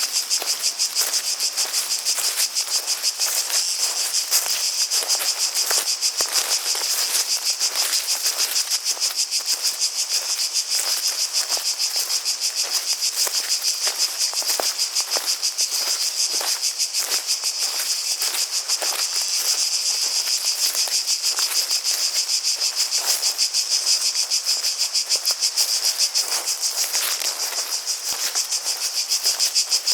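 Cicadas calling in a dense chorus: a steady, high-pitched buzz with rapid pulsing that holds at an even level throughout.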